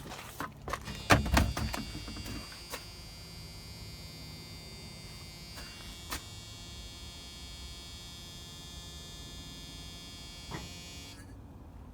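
A few clicks and knocks, then a steady electric motor hum with a high whine that runs for about nine seconds and stops near the end: the truck's heater blower fan running on low.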